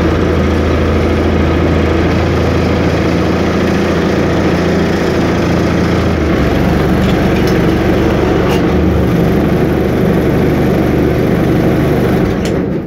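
Land Rover 200Tdi four-cylinder turbodiesel idling steadily, heard from inside the cab of a Series IIA 88". Near the end the engine is switched off at the key and dies away within about a second.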